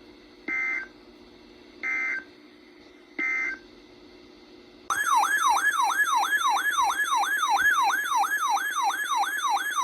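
Three short screeching EAS/SAME digital data bursts, the end-of-message code, about a second apart, over a faint steady receiver hum. About five seconds in, a loud siren-like alert tone starts, sweeping up and down about three times a second, announcing the next emergency alert.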